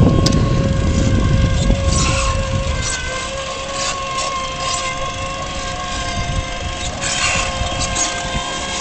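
Small electric quad bike's motor whining steadily as it drives along, over a low rumble of tyres and wind that eases after about two and a half seconds.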